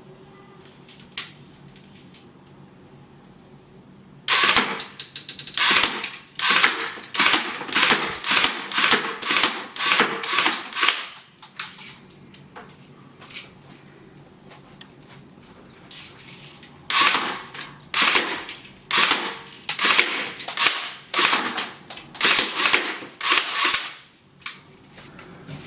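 Low-power airsoft submachine gun replica firing shot after shot at about two to three a second, in two strings of sharp snapping pops with a pause between them.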